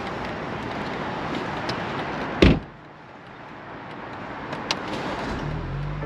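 Steady rushing noise from the BMW Z4 sDrive30i, broken by a single heavy thump about two and a half seconds in. After the thump it is suddenly much quieter, then the noise slowly builds back up, and a low humming tone comes in near the end.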